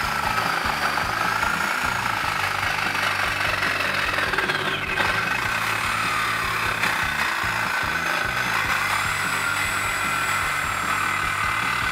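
Milwaukee Sawzall reciprocating saw with a thin curved metal-cutting blade, running steadily as it cuts through the truck's exhaust pipe beside the muffler weld.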